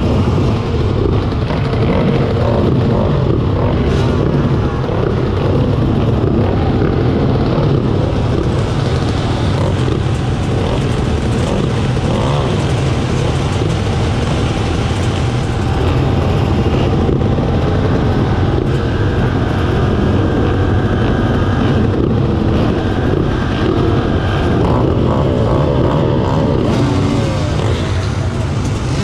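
Race car engines running on a track: a loud, continuous mix of several engines, their pitches rising and falling as they speed up and slow down.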